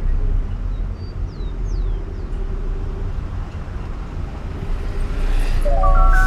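Car running, a low rumble of engine and road noise with no music over it. Near the end a new song starts, a melodic tune of bell-like notes.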